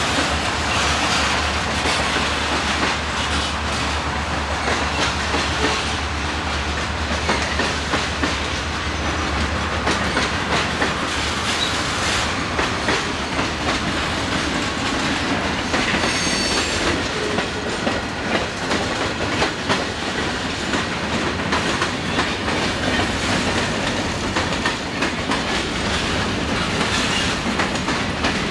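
Freight cars rolling past close by, wheels clicking over the rail joints in a steady rumble. A low diesel hum from the locomotives stops about a third of the way through, and a brief high wheel squeal comes about halfway through.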